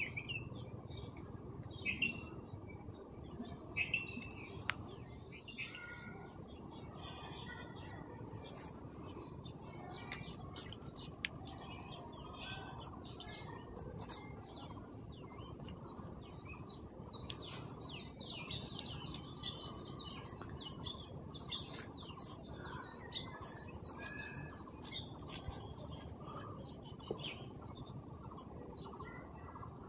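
Small birds chirping and calling, many short scattered chirps over a steady low background hiss.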